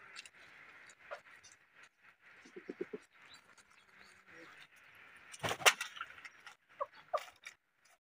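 Free-range chickens foraging: scattered soft clucks, a quick run of about five low clucks between two and three seconds in, and two short calls near the end. A loud, brief noise about five and a half seconds in is the loudest thing, over a steady faint high hiss.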